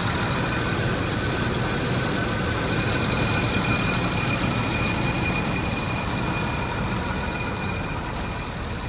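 1987 Jaguar XJ6's 4.2-litre straight-six idling steadily, heard close at the open engine bay; it is still warming up after a cold start.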